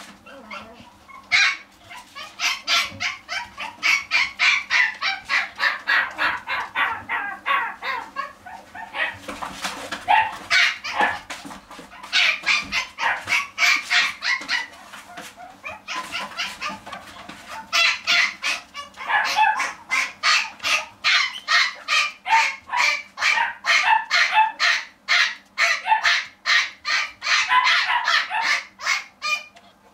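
A small dog yapping over and over, about three to four yaps a second, with a couple of short pauses.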